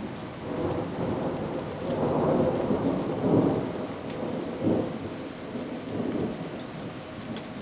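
Thunder rumbling over steady rain, swelling to its loudest about two to three and a half seconds in, with another short swell near five seconds.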